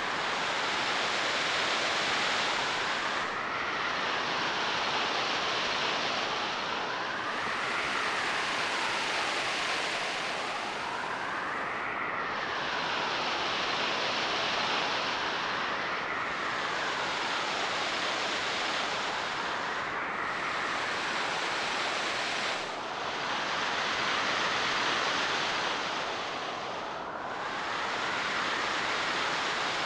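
Ocean surf ambience, a steady rushing hiss. A faint tone sweeps up and down about every four seconds, and the hiss dulls in step with it.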